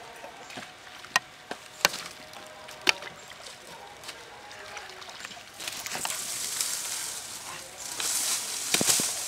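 Digging and breaking up wet mud and dry leaf litter by hand: a few sharp cracks in the first three seconds, then a rustling hiss from about halfway through, loudest near the end.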